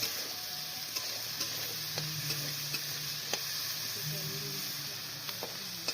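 Potato and carrot pieces sizzling in hot oil in a kadai, with a few sharp clicks of a spatula stirring against the pan.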